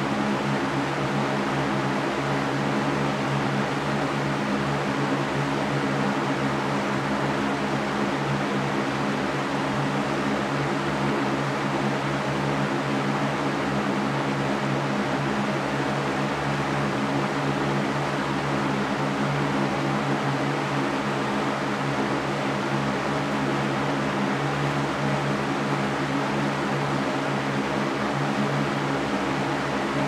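Mastercraft large metal-grille floor fan running steadily: an even rush of air over a low, constant hum.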